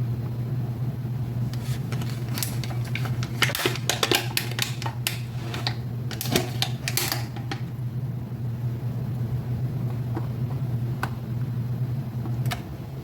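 Kitchen handling sounds: a quick run of clicks and light clatters, then a few single clicks, over a steady low hum that cuts off near the end.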